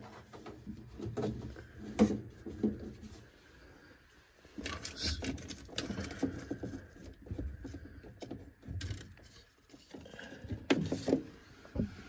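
Handling noise from a high-efficiency gas furnace's drain plumbing: irregular clicks, knocks and scrapes as a rubber hose is worked off a plastic fitting.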